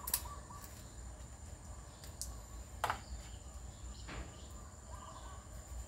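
A couple of sharp knocks of a cleaver on a thick wooden chopping block, one just after the start and one about three seconds later, with a steady thin high-pitched tone in the background.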